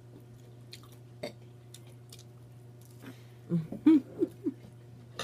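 Chewing on crispy fried catfish nuggets, with one sharp crunch about a second in. Then, about three and a half seconds in, a young girl lets out a little belch, a short pitched sound that wobbles for about a second.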